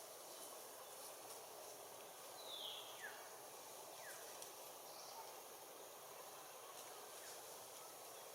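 Faint outdoor ambience: a steady background hiss with a few short, high calls falling in pitch, two about three seconds in and another about a second later.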